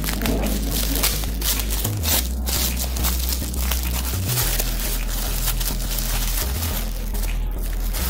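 Thin black plastic bag crinkling and rustling continuously as it is handled and unwrapped by hand.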